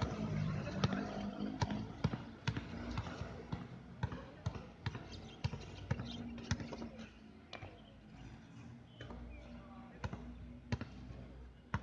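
A basketball bouncing on an outdoor concrete court during play, in a run of sharp, irregular bounces about two a second that thin out after the middle.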